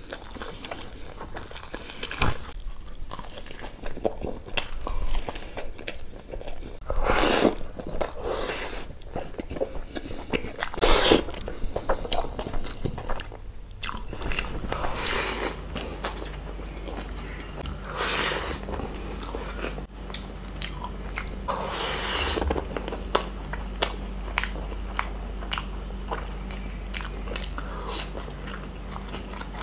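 A person eating chicken, rice and curry by hand close to the microphone: irregular chewing and biting, with several louder bites standing out.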